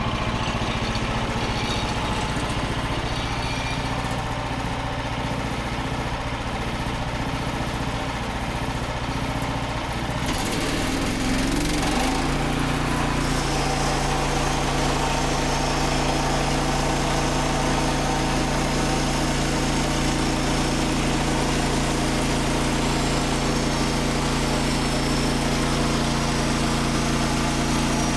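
Engine of a Frontier OS27 bandsaw mill running steadily. About ten seconds in it speeds up, then holds at a higher steady speed with more hiss.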